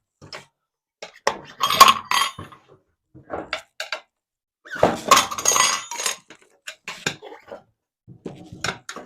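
Steel tire irons clinking and scraping against a metal motorcycle wheel rim as the tire bead is levered over it. There are scattered clicks, with two longer spells of clatter: one about two seconds in and one around five seconds in.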